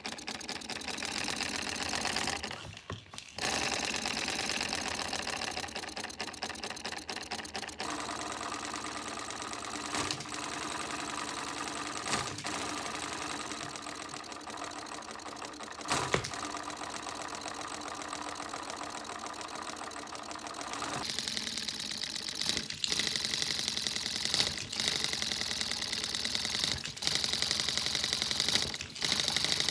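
Lego pneumatic V4 engine running fast on compressed air at about 35 psi (2.4 bar), around 1600 rpm: a rapid, steady rattle of plastic pneumatic cylinders and valves. The sound shifts abruptly a few times and is louder and brighter in the last third.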